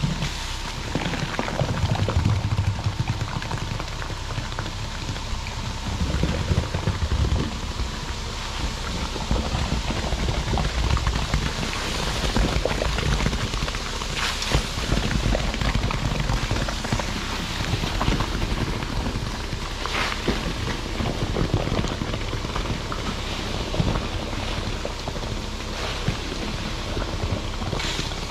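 Wet flowable fill slurry pouring steadily down a concrete truck's chute and splashing into a trench, a continuous rain-like rushing. A low rumble runs underneath.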